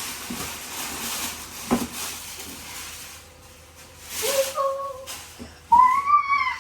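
Plastic shrink-wrap crinkling and rustling as it is pulled off a toy box, with a knock about two seconds in. Near the end come two short high-pitched vocal calls.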